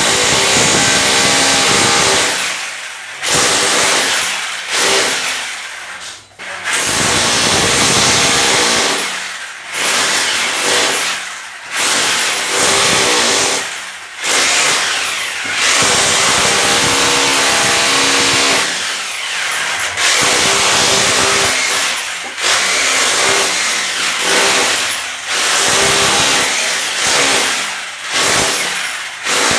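Handheld electric power tool run in repeated bursts of a couple of seconds, with brief let-offs between them. The motor's pitch slides down as it slows and climbs again as it speeds back up.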